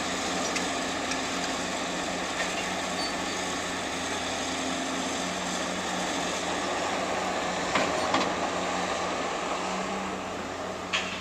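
Heavy demolition machinery running steadily with an engine hum, with a couple of sharp clanks about eight seconds in and another near the end, typical of concrete slab pieces being handled.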